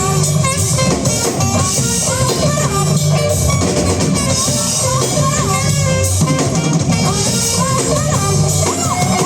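Band playing rock music: a drum kit with bass drum and a guitar over a steady beat, loud and continuous.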